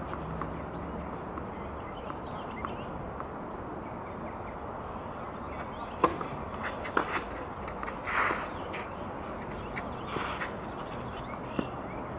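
Tennis ball struck by rackets: a sharp serve about six seconds in, then rally shots about a second or more apart. Two longer, rougher sounds come between the shots. The court sounds steady and outdoor throughout.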